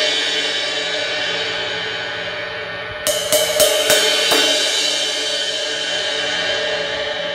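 Zildjian A Custom Rezo 20-inch crash cymbal, with a small crack, struck with a stick and left ringing with a long shimmering wash. Around the middle comes a quick run of about five strikes, then the wash fades slowly.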